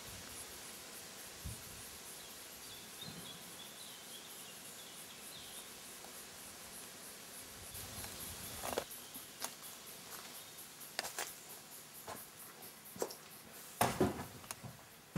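Faint bush ambience: a steady, high insect chirring pulsing several times a second, with a few faint bird calls a few seconds in. From about halfway, scattered knocks and scuffs break in, the loudest cluster near the end.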